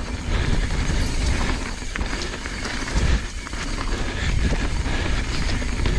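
Riding noise of an Evil Insurgent MX mountain bike rolling down a dirt singletrack: tyres on packed dirt with scattered small rattles and knocks from the bike, over a low rumble of wind on the microphone.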